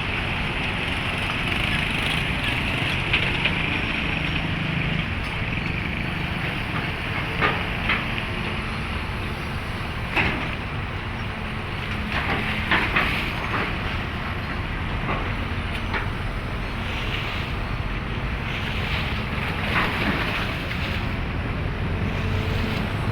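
Heavy earthmoving machinery running steadily, a low engine rumble with scattered sharp metallic clanks and knocks.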